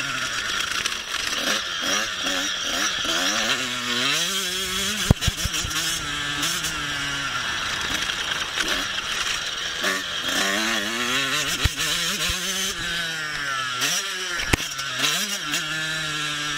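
Husqvarna TC 85 two-stroke motocross bike engine running hard, its pitch climbing and dropping back several times as the throttle is worked. There are a few sharp clicks, about five seconds in and again near the end.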